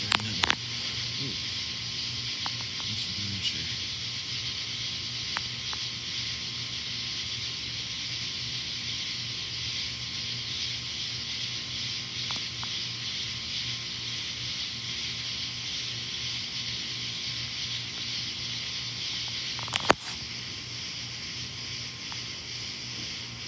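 A steady high-pitched outdoor hiss on a stormy night. There are a few sharp clicks in the first second and one louder click near the end.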